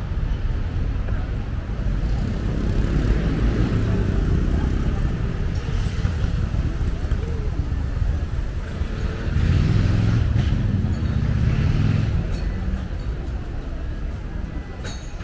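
City street traffic: cars driving past with a steady low rumble, swelling louder twice as vehicles go by close, once a few seconds in and again around ten seconds in.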